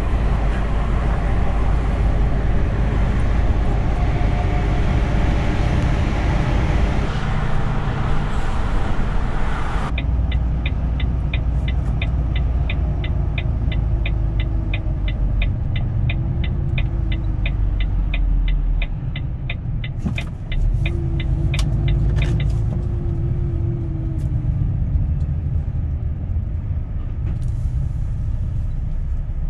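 Interior of a truck cab on the move: the engine and road noise of motorway driving, which switches to slower driving on a country road about ten seconds in. From then on a turn indicator ticks steadily, about three clicks a second, for roughly twelve seconds, while the engine's pitch rises and falls with the changes in speed.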